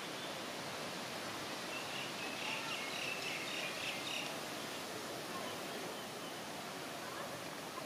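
Outdoor garden ambience: a steady hiss of background noise, with a short patch of high chirping about two seconds in.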